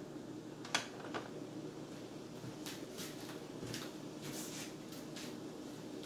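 Two sharp knocks about a second in, less than half a second apart, as a wooden spatula is tapped on the rim of a metal skillet, followed by soft, irregular pops and ticks from a pan of thick tomato sauce, all over a low steady hum.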